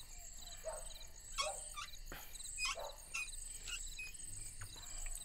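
Crickets chirping steadily in a rapid, high-pitched trill, with a few short faint sounds scattered over it.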